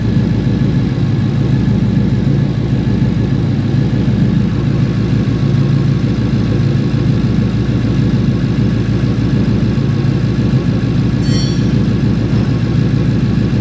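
2015 Ford Mustang 5.0 V8 idling steadily with a misfire on cylinder 8, whose fuel injector is getting only an intermittent firing pulse, which the technician puts down to a poorly contacting connector.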